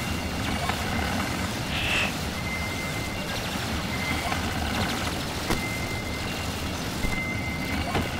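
Experimental electronic sounds from a Ciat-Lonbarde Cocoquantus and a Korg Volca FM: an intermittent thin, high beeping tone and short chirps over a steady low rumble.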